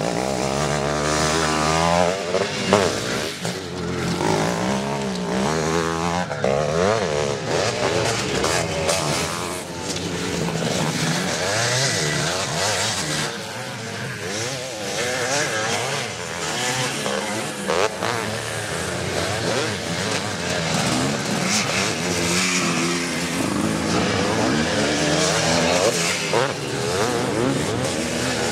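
Motocross bikes racing on a dirt track, their engines rising and falling in pitch as riders open and close the throttle through corners and jumps. More than one engine is heard at times.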